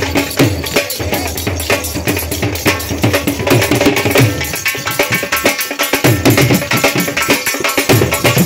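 Dhol drums played in a fast, dense rhythm: deep bass strokes that drop a little in pitch, under rapid sharp strokes.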